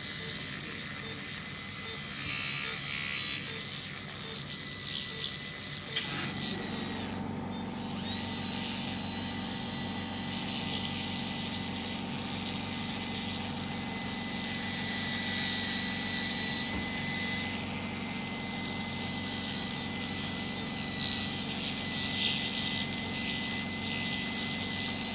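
Veterinary dental polishing handpiece running with a steady high-pitched whine as a prophy cup polishes a dog's teeth. A lower hum joins about six seconds in, the sound breaks off briefly a second later, and a louder hiss rises in the middle.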